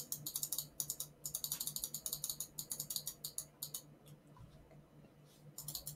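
A rapid run of computer-mouse clicks, about eight a second for nearly four seconds, then a couple more near the end, over a faint low hum.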